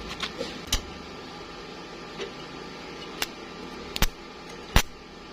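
Four sharp knocks spaced out over a steady low hum, the last two the loudest.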